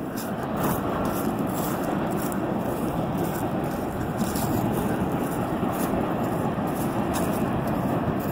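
Distant CN freight train rolling past a grade crossing: a steady, even rumble of the cars on the rails.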